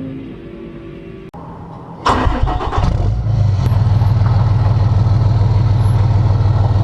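An engine cranks and catches about two seconds in, then runs steadily at a low, even idle.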